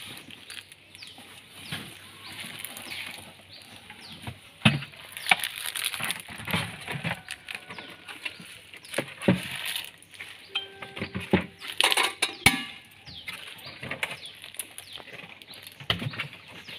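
Irregular knocks, clicks and rustles as a glass-and-aluminium popcorn cart and cardboard boxes are handled and packed into a car's rear cargo area.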